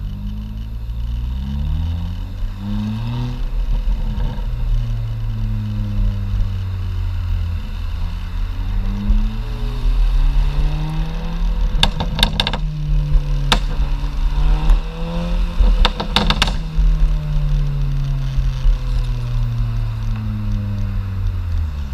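VW Golf MK5 GTI's 2.0-litre turbocharged four-cylinder exhaust, resonator deleted, running under load as the car speeds up and shifts, then slowing toward the end. About halfway through and again about three quarters through, a quick string of sharp pops and crackles comes from the exhaust on lift-off: the overrun burble programmed by the Superchips Bluefin 'Snap Crackle Bang' tune.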